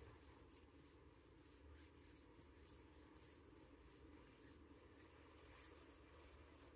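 Near silence: faint room tone with a low hum and light scratchy rustling.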